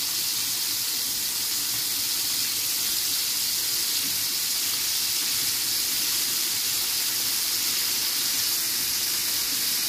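Breaded chicken drumsticks deep-frying in hot oil in a cast-iron skillet: a steady sizzling hiss.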